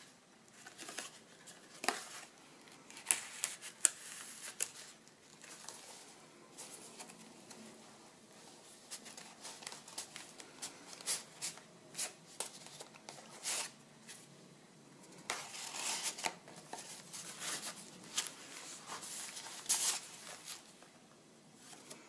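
Pages and card tags of a handmade paper journal being turned and handled: irregular rustling and crinkling of paper, with sharp flicks and taps now and then as pages and tags are flipped.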